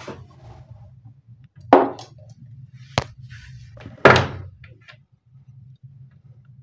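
Sharp snaps from the still-charged capacitor on a sewing-machine servo drive board being shorted to discharge it: two loud cracks about two and a half seconds apart, with a short sharp click between them, over a low hum.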